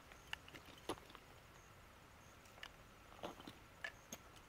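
Faint, scattered clicks and crunches of a person in rubber boots stepping about on stony, gravelly ground. The sharpest click comes about a second in and a small cluster follows a little after three seconds.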